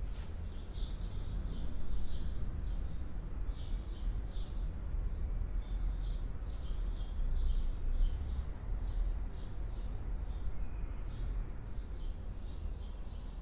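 Small birds chirping: short high chirps in quick groups of two to four, repeating throughout over a low steady rumble.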